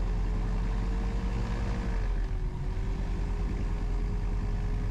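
SeaRey LSX light amphibian's engine running steadily at low taxi power, heard from inside the cockpit; its pitch dips slightly about two seconds in.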